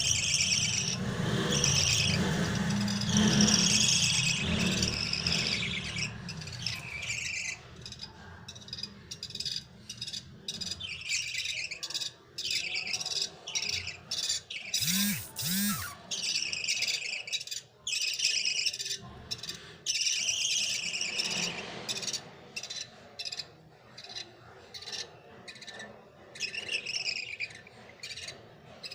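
A flock of budgerigars chattering and warbling in many short, repeated bursts, with a low rumble under the first few seconds.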